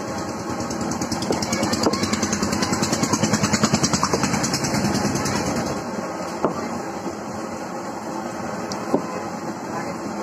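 A small engine, like a motorbike, passes with a fast, even pulsing that swells and then fades about five seconds in, over steady street traffic noise. A couple of sharp knocks follow later.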